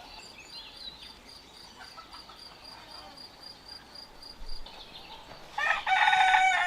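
A rooster crowing loudly about five and a half seconds in, its call held on into a long drawn-out note. Before it, only a faint high chirping, repeating evenly about four times a second.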